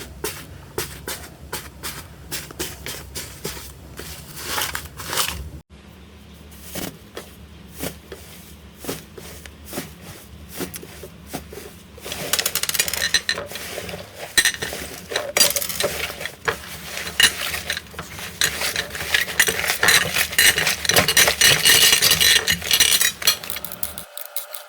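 Slime being handled and squeezed, making sticky clicks and crackles. They are sparse at first, then turn into a denser, louder crackling about halfway through.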